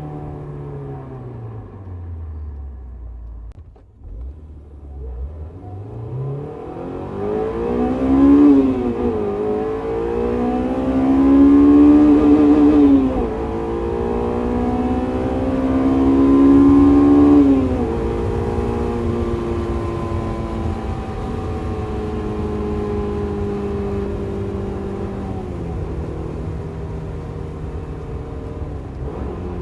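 Honda S2000 AP1's 2.0-litre four-cylinder engine breathing through a K&N cold air intake. Its pitch falls for the first few seconds, then it revs up hard with three quick drops in pitch, like upshifts, about 8, 13 and 17 seconds in. After that it settles into a steadier cruise.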